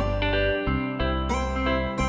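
Background music: a gentle tune on plucked guitar-like strings over a bass line, with notes changing about every half second.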